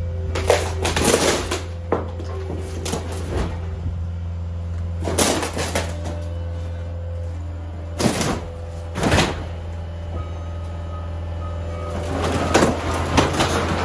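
A loader's engine running steadily while its grapple breaks through a mobile home's wall. Wood framing and panelling crack and crash in several bursts: about a second in, around five seconds, twice around eight and nine seconds, and a cluster near the end.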